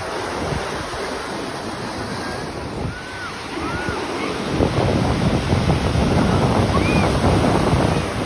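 Ocean surf breaking and washing up the beach, with wind buffeting the microphone. The wash grows louder about halfway through as waves break and foam in close.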